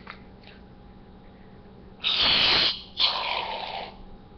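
Aerosol can of whipped cream sprayed into the mouth: two hissing spurts about a second apart, each under a second long.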